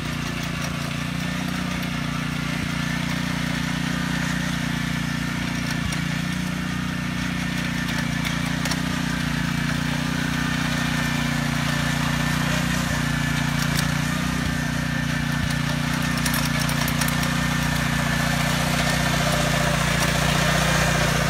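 Small engine of a walk-behind powered tiller running steadily as it works the soil, growing slightly louder toward the end.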